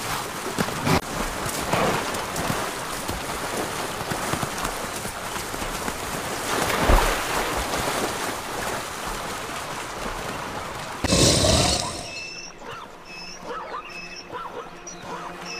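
Zebras splashing through a shallow river: a steady rush of churned water with sharper splashes, loudest in a burst about eleven seconds in. Then the water stops and quiet music with repeated high notes comes in.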